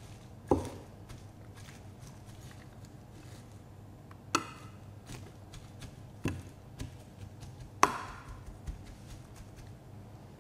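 A slotted metal spoon spreading chopped greens in a glass baking dish: soft scraping with a few sharp clicks and taps of the spoon against the glass, spaced a couple of seconds apart.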